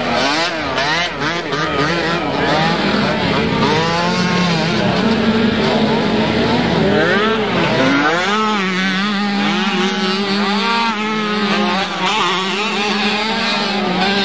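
Several 50cc racing quad engines revving up and down together, their overlapping whines rising and falling as the riders throttle on and off.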